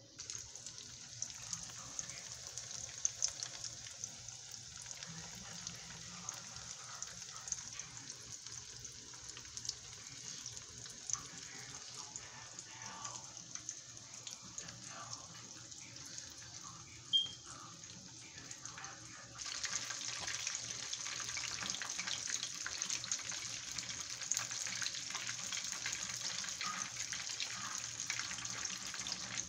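Steady hissing noise with scattered light clicks, stepping up louder about two-thirds of the way through.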